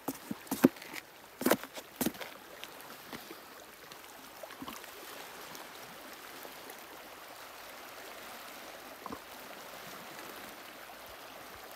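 Small waves of a partially frozen lake lapping at the shore, a steady soft wash of water. A few sharp clicks and knocks sound in the first two seconds.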